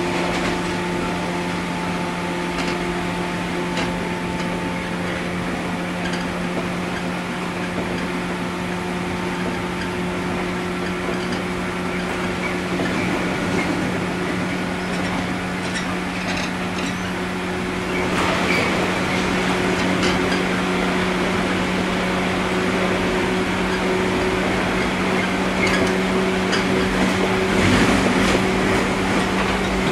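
Interior sound of a 103 series electric commuter train: a steady machinery hum with a fainter higher whine and no clear wheel clatter. The general noise grows louder about eighteen seconds in.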